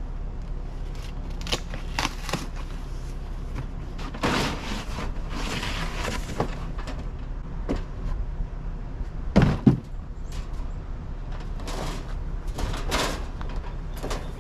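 A series of knocks and clunks from things being handled, the loudest a pair of heavy thuds about nine and a half seconds in, over a steady low hum.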